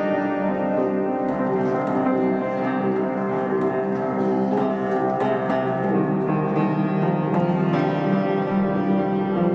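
Upright piano playing, held chords ringing on with a few freshly struck notes.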